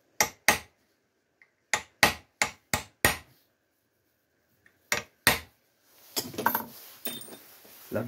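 Hammer tapping a centre punch into a metal plate held in a vise, marking hole centres for drilling: sharp metallic strikes in three groups of two, five and two. Then a couple of seconds of clatter as tools are handled and set down on the bench.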